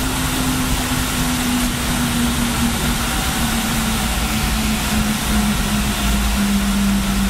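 Cabin noise of an MD-80 rolling on the runway after touchdown: a steady rumble of wheels and airflow with the hum of its tail-mounted Pratt & Whitney JT8D engines slowly falling in pitch as they spool down.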